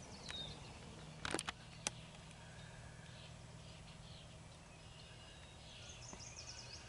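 Faint outdoor birdsong: scattered chirps and a short high trill near the end, with a few sharp clicks about a second and a half in.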